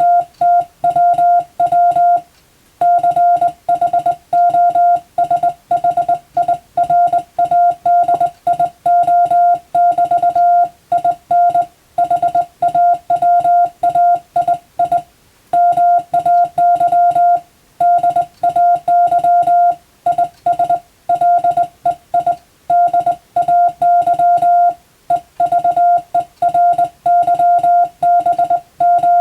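Morse code sent by hand on a telegraph key: a steady beeping tone switched on and off in quick dots and dashes, with short pauses between words.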